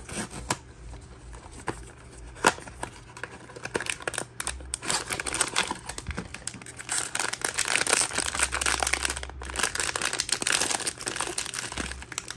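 Foil blind-box bag crinkling and tearing as it is pulled open, the crinkling thickest in the second half. A few sharp clicks from the small cardboard box being opened come first.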